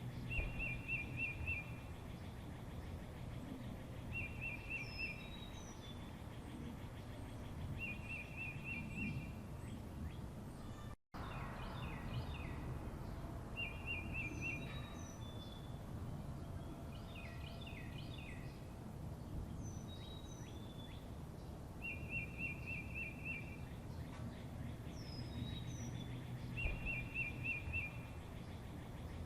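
Several small songbirds singing over a steady low background noise: a short rapid trill repeated every three to four seconds, high down-slurred chirps, and clusters of quick notes. About eleven seconds in the sound cuts out for an instant, like a splice in the recording.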